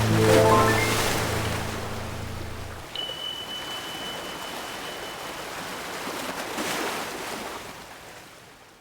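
Ocean waves washing on a shore, with the close of a gentle melody over them: a quick rising run of chime-like notes over a held low note that stops about three seconds in. A single high steady tone follows for about two seconds, and the waves fade out at the end.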